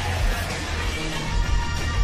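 Music with a strong, steady bass.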